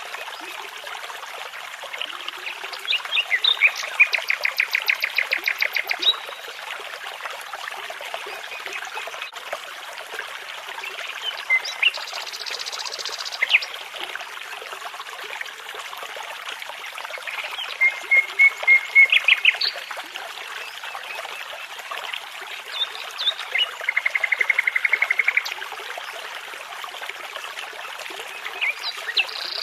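Songbirds singing in phrases of rapid repeated notes and trills over the steady rush of a babbling brook.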